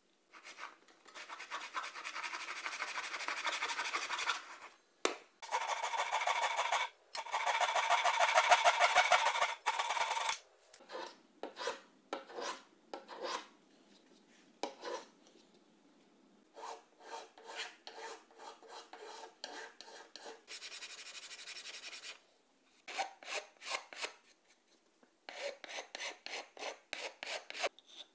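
Hand file scraping across the wooden butt of a snooker cue, stroke after stroke. It runs in three long stretches of quick, close strokes through the first ten seconds, then in groups of separate, slower strokes with short pauses between them.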